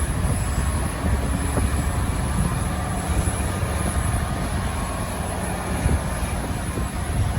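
Jet airliner engines rumbling steadily, a deep rumble with a faint whine above it.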